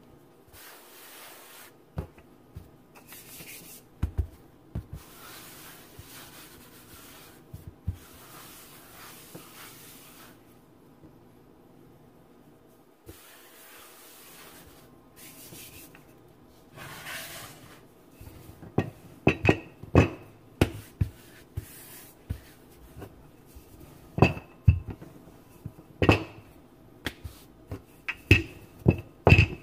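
Flour-tortilla dough being worked on a laminate kitchen counter: soft rubbing and a few dull pats as hands press a dough ball flat. In the second half a wooden rolling pin rolls it out, with a quick series of sharp knocks and clacks against the counter.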